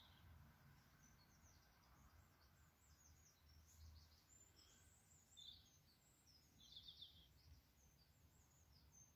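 Near silence: room tone with a few faint, short high chirps.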